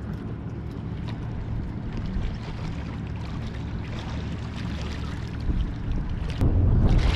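Steady outdoor noise of wind and sea. A louder low rumble comes in about six and a half seconds in.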